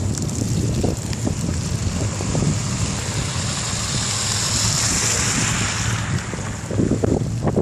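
Wind rumbling on the microphone during a bicycle ride on snowy streets, with a hiss that swells and fades around the middle, like a vehicle's tyres passing on the slushy road.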